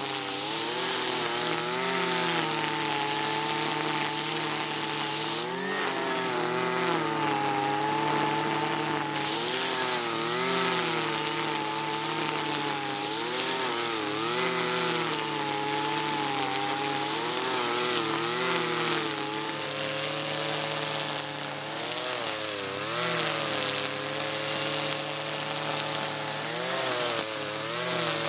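Husqvarna 323R two-stroke brushcutter running under load, held short of full throttle, its engine pitch dipping and recovering every second or two as the cutting head swings through tall, dense dandelions mixed with couch grass.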